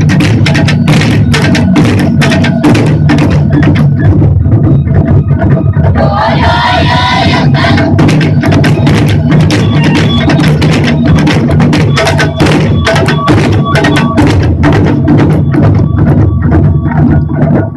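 Japanese taiko drum ensemble playing loud, fast, driving strikes over deep, steady low drums. About six seconds in, a short burst of voices calls out over the drumming.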